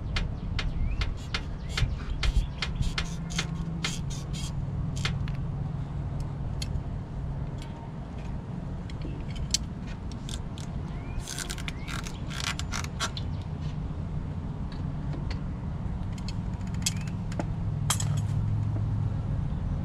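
Scattered light clicks and taps of hands and a tool on a generator's carburetor parts, thickest in the first few seconds and again around the middle, over a steady low rumble.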